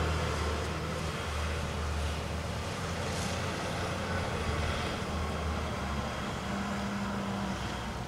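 Steady low rumble of distant motor vehicles and machinery in an urban outdoor setting, with a brief higher hum about six and a half seconds in.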